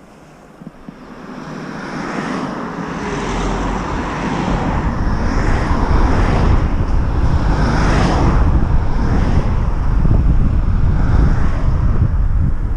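Wind and road noise on a riding cyclist's camera microphone, a low rumble that grows much louder over the first several seconds and then stays loud, with a few cars passing on the road.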